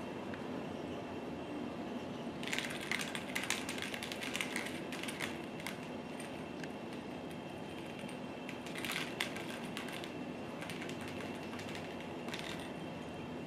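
Short bursts of rapid clicking and rustling, three times a few seconds apart, as a hand plays with a cat on a rug, over a steady low background hum.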